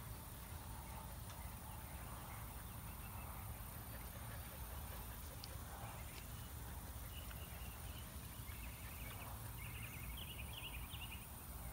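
Quiet outdoor ambience: a steady low rumble, with faint short runs of high chirping in the second half.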